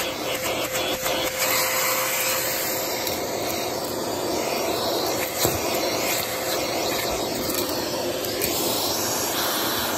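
Vacuum cleaner running steadily with a constant hum, its round brush nozzle rubbing over carpet as it picks up crumbs.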